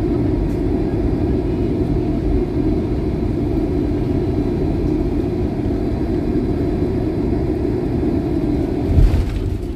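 Airliner cabin noise: a steady deep rumble of engines and airflow. A short low thump comes about nine seconds in.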